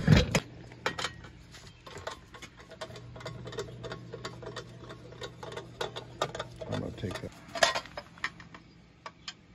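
Screwdriver clicking and scraping against a sheet-metal electrical outlet box, with irregular light metallic ticks and a louder clatter about three-quarters of the way through. A low steady hum runs underneath for most of the first seven seconds.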